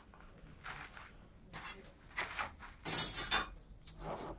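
Steel clinking and scraping as a bar is handled and pushed into the coals of a blacksmith's forge: a few separate clinks, with the loudest clatter about three seconds in.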